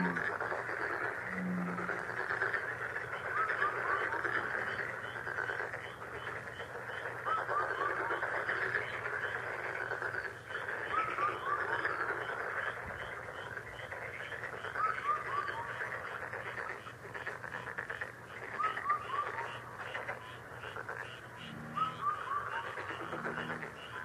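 Countryside nature ambience: a dense steady chorus of frogs or insects, with a bird repeating a short phrase of three or four quick falling notes about every four seconds. Low pulsed calls come in about a second and a half in and again near the end.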